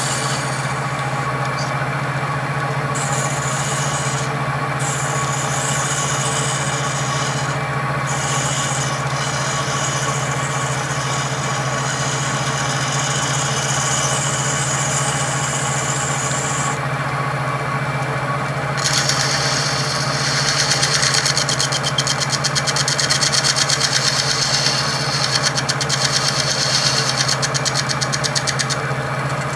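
Wood lathe's electric motor running with its step pulley spinning, while a hand-held tool is pressed against the pulley to true and clean its JB Weld repair, scraping steadily. About two-thirds of the way through, the scraping turns into a fast rattling chatter.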